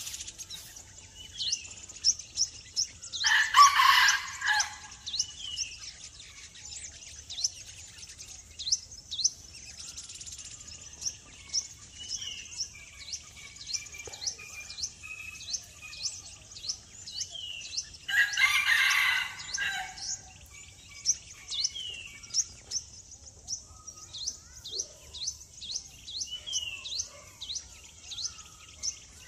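Small birds chirping over and over in quick, short downward-sliding chirps, with two louder calls, each about a second and a half long, a few seconds in and again about two-thirds of the way through, which fit a rooster crowing.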